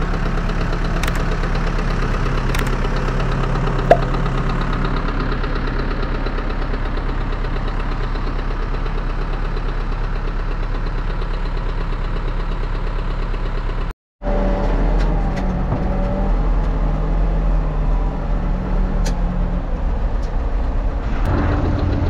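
Backhoe loader's diesel engine running steadily, with a single sharp click about four seconds in. The sound drops out for a moment about two-thirds through, then the engine comes back deeper and louder.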